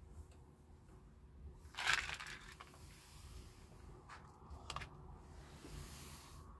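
Kittens eating cat food: a short burst of crunching about two seconds in, then two faint clicks.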